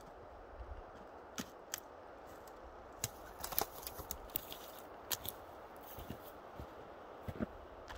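Faint background with a scattering of short light clicks and knocks, about a dozen, spread irregularly and clustered around the middle. The chainsaw is not running.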